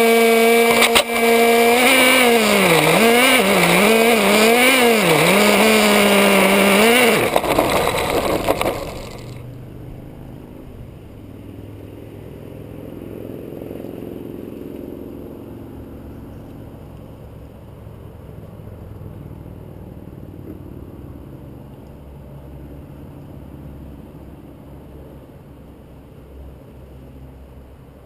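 Nitro two-stroke glow engine of an RC car running at a steady high pitch, then revved up and down over and over as the throttle is worked. About nine seconds in the engine sound stops, and only a quiet low rumble is left.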